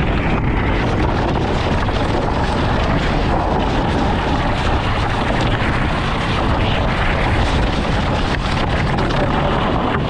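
Sled being towed over a thin layer of snow on a gritty track surface: a steady, loud scraping rumble from the sliding, mixed with wind buffeting the microphone.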